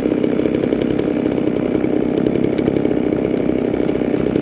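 Two small two-stroke chainsaws, a McCulloch Mac 350A and a Shindaiwa 360, running together steadily while warming up.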